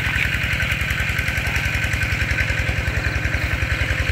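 Small engine driving the water pump that drains the pond, running steadily at an even beat of about a dozen pulses a second.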